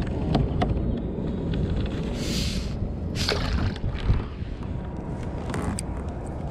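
Wind buffeting the microphone over water lapping at a kayak, with two short splashy rushes about two and three seconds in as a redfish is let go back into the river.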